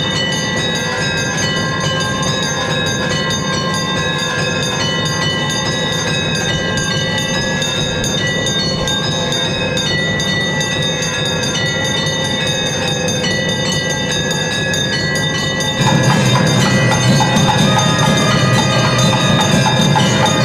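Temple bells ringing continuously during an aarti, a dense metallic ringing. About 16 seconds in it grows louder as heavier clanging joins.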